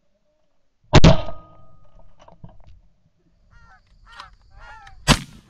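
Two shotgun shots about four seconds apart, the first about a second in and the second near the end, with geese honking between and after them as the flock flares.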